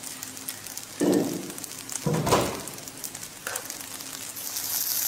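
Seafood being tipped from a bowl onto fried rice in a hot frying pan, with two dull knocks about one and two seconds in. The pan's sizzle swells into a steady hiss near the end.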